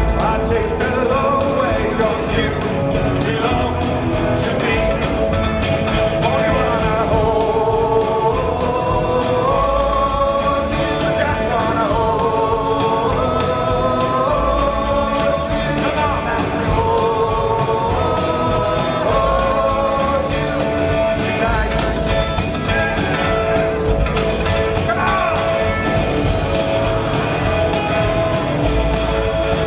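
Live rock band playing loudly: electric guitars, upright double bass and drum kit, with a sung lead vocal over them.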